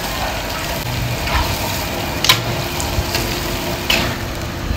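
Stir-fried vegetables and chicken sizzling in a wok over a high gas flame, with the steady rush of the burner underneath. A metal wok spatula scrapes through the food and clinks sharply against the wok twice, about two and four seconds in.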